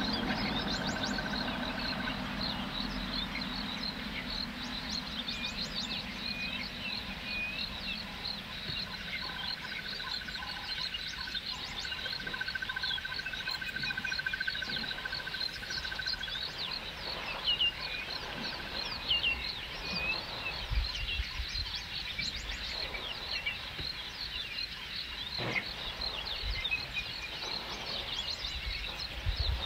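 Outdoor waterhole ambience: many birds chirping over a dense, steady, high-pitched pulsing chorus of small calling animals, with a whistle-like trill that comes and goes in the middle. A low vehicle engine hum fades out over the first few seconds, and a few low thuds sound in the second half.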